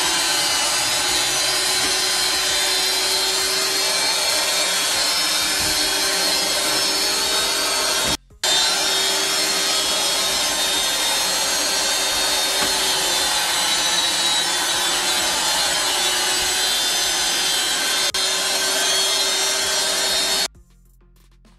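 Upright carpet-cleaning extractor's vacuum motor running loud and steady with a hum beneath it, sucking flood water out of a soaked carpet. It cuts out for an instant about eight seconds in and stops near the end.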